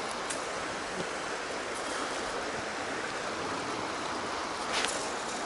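Shallow, rocky brook running over stones: a steady rush of water, with a few faint clicks.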